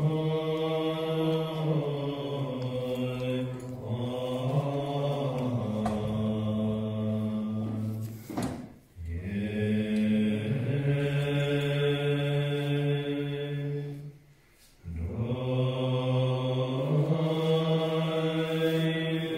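Tibetan Buddhist monks chanting together in long, slow, low held notes that glide gently in pitch, breaking off briefly twice, about nine and fifteen seconds in.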